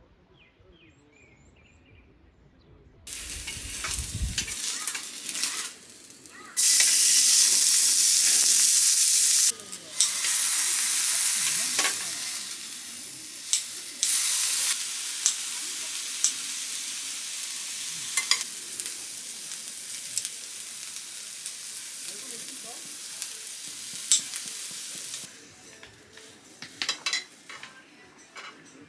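Food frying in a hot pan: a loud sizzle with scattered spattering pops. It starts suddenly about three seconds in, is fiercest for a few seconds, then settles to a steadier sizzle before dying down near the end.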